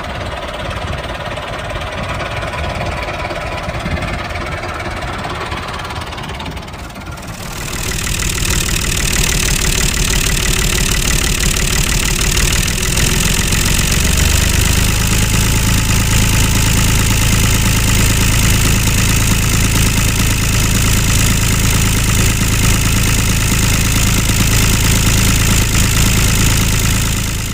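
Tractor engine running steadily, growing much louder about seven and a half seconds in, with a steady low hum underneath that shifts slightly in pitch around fourteen seconds.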